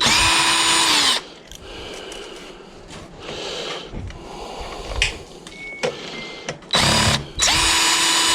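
Power drill running in three bursts to back screws out of the autoclave's steel casing: about a second at the start, a short blip near seven seconds and a longer run near the end. Each burst is a steady motor whine that winds down as the trigger is let go, with handling noise between the bursts.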